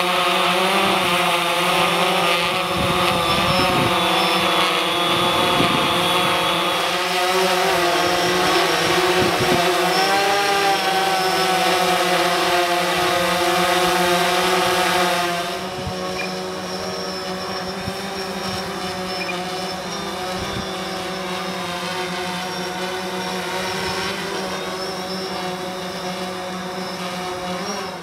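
DJI Phantom 4 quadcopter's propellers whining as it hovers in gusty wind, the pitch wavering up and down as the motors correct against the gusts, with wind buffeting the microphone. About halfway through the sound drops and thins, as the drone is heard from farther away.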